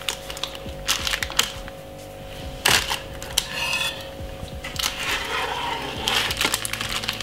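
Knife blade clicking and scraping against a metal baking tin and wooden chopping board as a sponge cake is cut, in irregular short sharp knocks.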